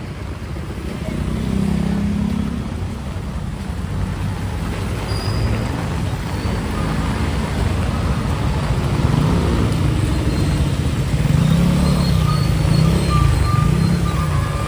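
Street traffic: a motor vehicle's engine running close by, its pitch rising and falling repeatedly in the second half, over a steady hiss of road noise.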